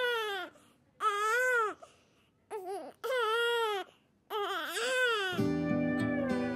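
Newborn baby crying in about five short wails, each rising and then falling in pitch, with brief pauses between. Music comes in near the end.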